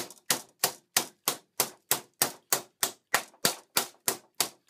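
Metal meat mallet pounding boneless pork loin flat through wax paper on a wooden board: quick, even blows, about three a second, each a short sharp slap.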